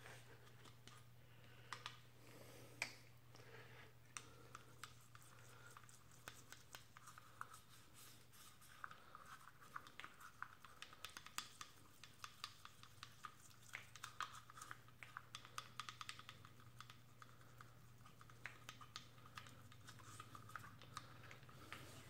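Faint scratching and ticking of a toothbrush scrubbing the bore and butterfly plate of an electronic throttle body, wet with fuel injection cleaner to loosen the carbon crud. The strokes come in irregular runs, thickest about halfway through, over a steady low hum.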